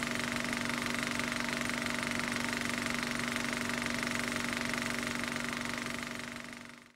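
A machine running steadily with a constant hum, fading out near the end.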